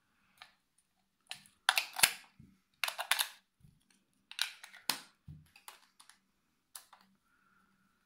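Plastic clicks and scrapes from a toy robot's hard plastic remote control as its battery cover is handled and pressed into place, coming in several irregular bursts.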